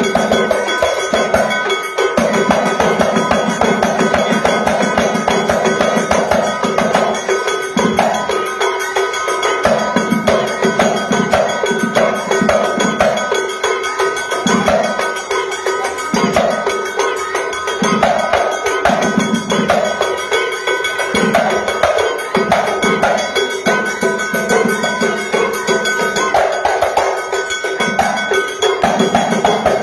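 Moroccan Houara folk percussion: a fast, unbroken clanging metal beat over frame drums and hand-clapping, with a steady ringing tone under it.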